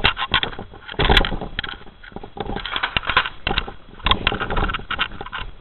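Footsteps of a person walking over dry ground, an irregular run of crunching, scraping steps.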